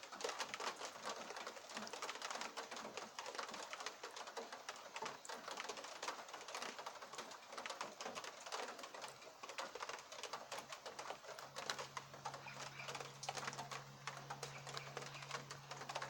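Light rain pattering as a dense, irregular scatter of small ticks. A steady low hum joins about nine seconds in.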